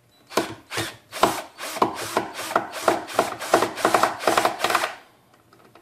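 Cordless drill running in reverse through a flexible shaft extension, backing a screw out of a particleboard board. It makes a series of short, repeated strokes that start at about two a second and quicken to about five a second, then stop about five seconds in.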